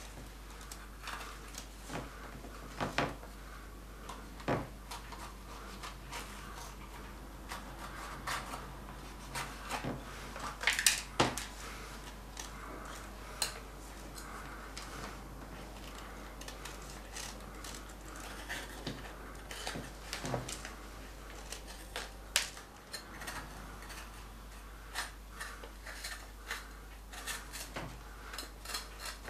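Knife cutting bell peppers by hand: irregular light clicks and knocks as the blade and the pepper pieces hit the wooden board and a plastic container, with a few louder knocks.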